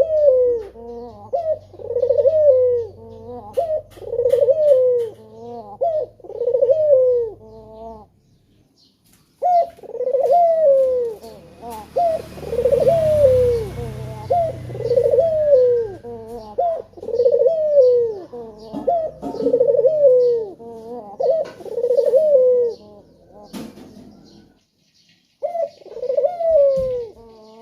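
A male puter dove calling 'gacor', cooing over and over with a rising-and-falling coo about once a second. It pauses briefly about eight seconds in and again near the end, and there is a soft rustling hiss in the middle.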